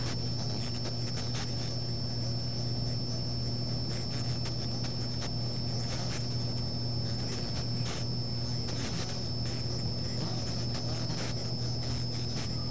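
Steady low drone inside a moving car's cabin, with a thin high whine over it and a few faint ticks.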